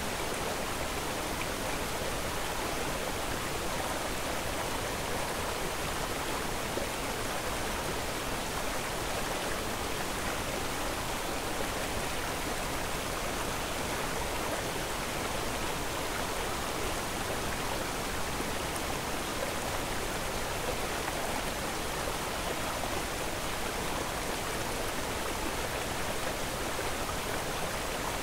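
A steady, unchanging rushing hiss that spreads evenly from low to high pitches, with no breaks or separate sounds.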